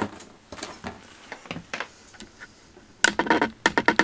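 Handling noises around a cardboard shipping box and a folding knife. A sharp click comes at the start, then scattered light taps and scrapes, then a fast run of rattling clicks near the end.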